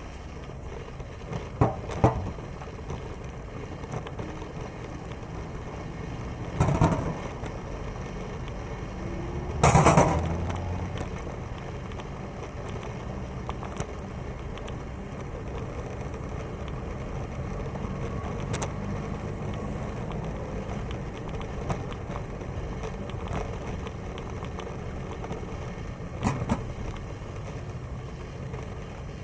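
Steady low rumble of wind and road noise from cycling along a paved path, broken by a few sharp thumps, the loudest about ten seconds in.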